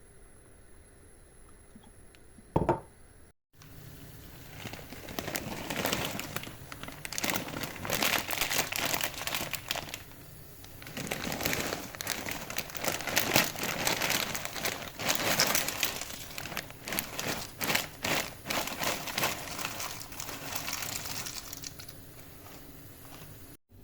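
A single sharp knock, then a long stretch of dense, irregular crinkling and crumpling of packaging being handled, with a short lull partway through.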